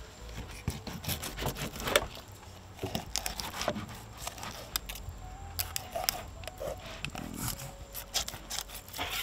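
Fillet knife cutting a whole snapper on a cutting board: irregular scrapes, clicks and tearing as the blade slices behind the head and along the backbone to lift the fillet.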